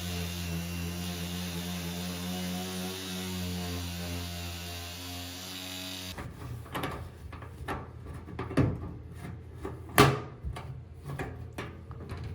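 A steady low hum for about six seconds that cuts off suddenly, followed by a run of irregular metal clicks and knocks from the vintage toolbox's latches and lid being handled, with one sharp knock about ten seconds in.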